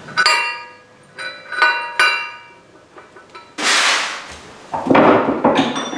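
Three hammer blows on metal, each leaving a bright ringing tone, the last two close together. They are followed by a couple of seconds of loud scraping and rustling.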